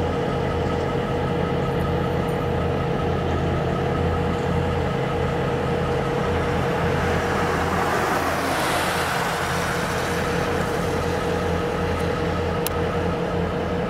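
Norfolk Southern diesel-electric locomotive idling with a steady engine hum. A road vehicle passes in the middle, swelling and fading over about three seconds.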